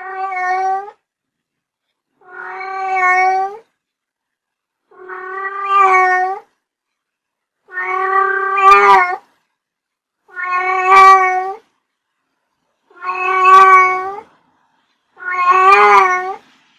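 A cat meowing over and over, about seven drawn-out meows, one every two and a half seconds or so, each held at a steady pitch that bends at the end, with silence between them.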